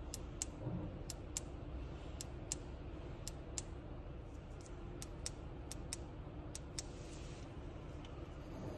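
Faint, sharp plastic clicks and taps, about one or two a second and often in quick pairs, from a hair-straightener brush being handled and its arms opened and closed, over a steady low background hiss.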